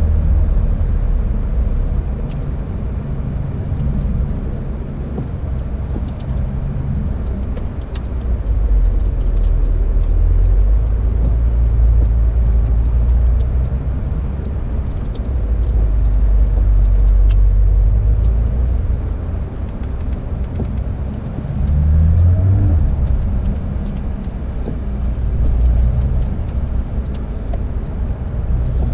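Porsche 911 GT3 (992)'s naturally aspirated 4.0-litre flat-six engine running on track, its pitch and loudness rising and falling with throttle and gear changes of the PDK gearbox.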